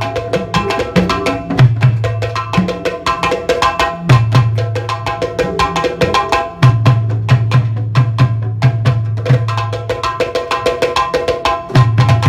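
Drum-led music: rapid sharp drum strikes in a dense rhythm over a deep, low drum tone that sounds in stretches of a second or two.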